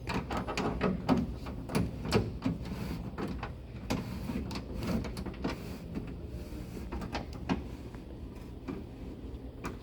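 1968 Chevrolet Impala door glass being rolled up by the window regulator inside a stripped door, with many sharp clicks and knocks that come thick over the first half and thin out after.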